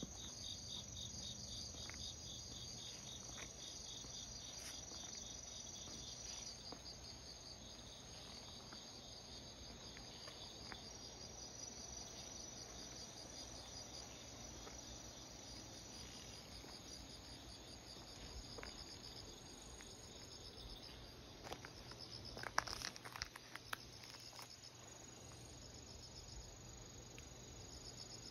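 Insects chirping in a fast pulsing trill, with a thin steady high tone beneath. About three quarters of the way through comes a short cluster of rustles and clicks, the loudest sound in the stretch.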